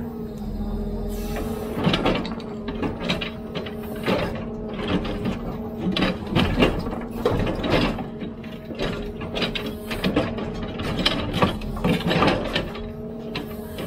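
Hidromek 102B backhoe loader's diesel engine running at a steady note under hydraulic load, with irregular clanks and knocks from the digging arm and bucket.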